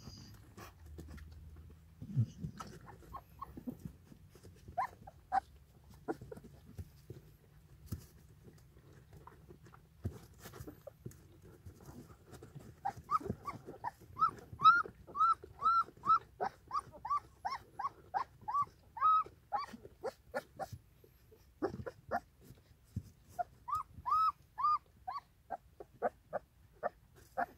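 Newborn puppies squeaking and whimpering while nursing from their German Shepherd mother: short, high, rising-and-falling cries, scattered at first, then a quick run of two or three a second from about halfway and another short run near the end, over soft wet suckling clicks.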